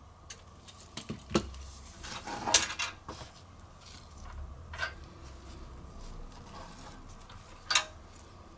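Handling noises from a removed PC side cover being moved and measured: a few sharp clicks and knocks and a brief scraping rustle, with the sharpest click near the end.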